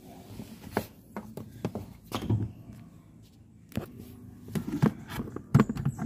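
Irregular plastic clicks and knocks of handling: a diagnostic scanner's OBD connector and cable being worked into the port under the dashboard.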